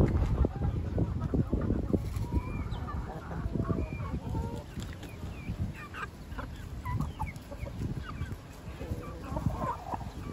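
Backyard chickens clucking, with many short, overlapping calls scattered throughout over a steady low rustling noise.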